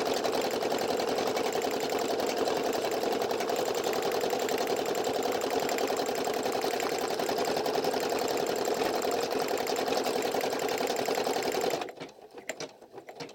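Brother PE800 embroidery machine stitching a patch at a fast, steady rate. Its running stops abruptly near the end, leaving a few faint clicks.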